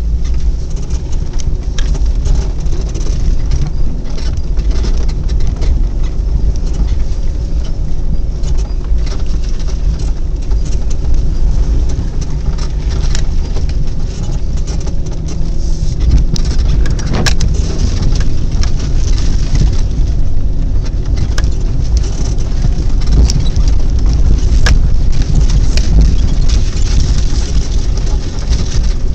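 Jeep running and rolling slowly over a snow-covered dirt track, heard from inside the cab as a steady low rumble of engine and tyres, with a few sharp knocks or ticks scattered through.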